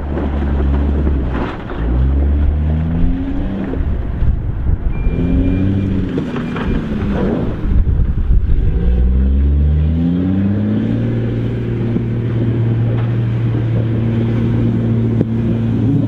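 Hydrema 922C articulated dump truck's diesel engine working under a full load, its pitch climbing, dropping back and climbing again several times as it pulls away, then holding steady for the last few seconds.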